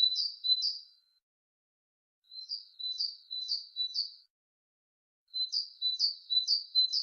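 A small songbird singing three short phrases of quickly repeated high chirping notes, three to five notes to a phrase, with pauses of about a second between phrases.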